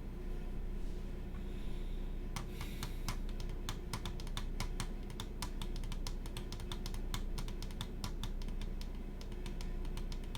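Typing on a computer keyboard: a fast, irregular run of key clicks that starts about two seconds in and keeps going.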